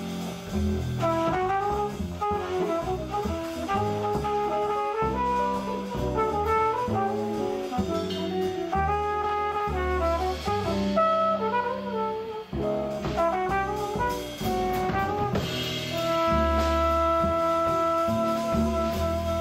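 Live jazz quintet playing: a brass horn carries a moving melody over upright double bass, drum kit and hollow-body electric guitar, with a saxophone, and settles on a long held note near the end.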